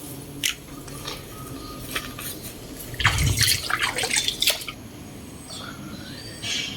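Water dripping and splashing in irregular drops, with a louder, busier spell of splashes about three seconds in.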